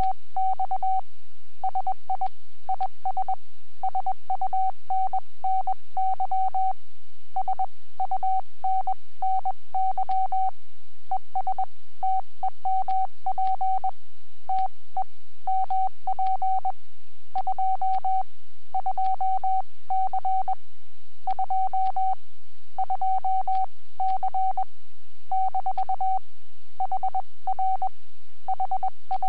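Morse code (CW) from an amateur radio transceiver on the 30-metre band: a single steady tone keyed on and off in dots and dashes, with short gaps between characters and words. A faint low hum runs underneath.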